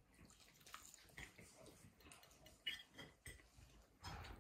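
Quiet eating at a table: scattered faint clicks and taps of a fork and dishes, with soft chewing, a little louder near the end.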